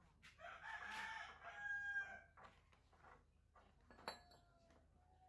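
A rooster crowing once, faintly, a single call of about two seconds. A single sharp click comes near the end.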